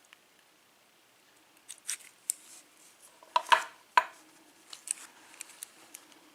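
Small metal clicks and light scrapes of a padlock being handled and taken apart by hand, with two sharper clicks near the middle.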